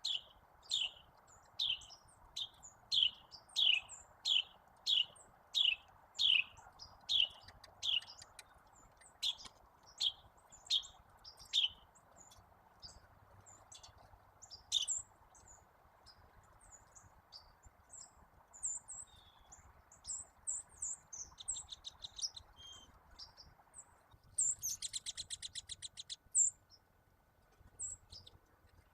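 Backyard songbirds calling: one bird repeats a clear downslurred whistled note about once a second for the first twelve seconds. After that come scattered high chips, and a loud, fast rattling trill about 24 seconds in that lasts two seconds.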